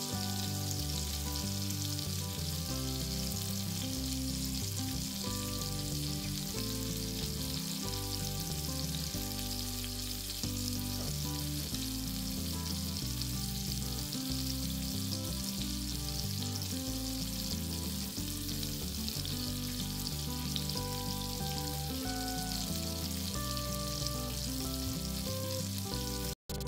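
Rohu fish steaks sizzling steadily as they shallow-fry in hot oil in a frying pan, with soft background music underneath.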